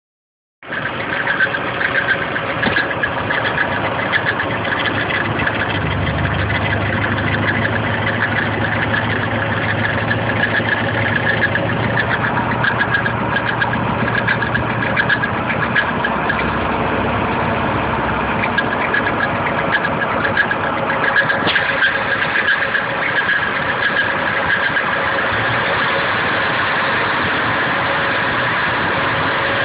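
Nissan KA24DE four-cylinder engine running steadily with a fast ticking rattle. The owner has traced the rattle to the timing chain front cover and suspects timing chain or chain guide noise.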